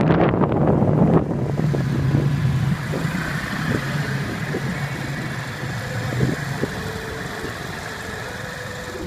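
An engine running steadily with a low hum, after a louder noisy start, slowly fading. A few short clicks sound over it.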